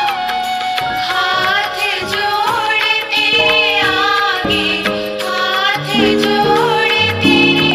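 Devotional song playing: singing over instrumental backing, with held low notes stepping down in pitch toward the end.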